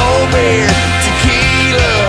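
Country-rock song playing as background music.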